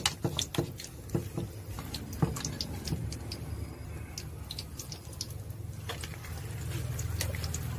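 Squid-roe cakes frying in hot oil in a steel wok: scattered sharp pops and crackles of the oil, with a metal spatula knocking in the pan now and then.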